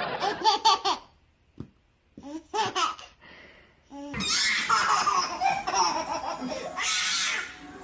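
A baby laughing in short, quickly repeated bursts of belly laughter, in two bouts with a quiet gap between them, then a louder, busier stretch of sound from about four seconds in.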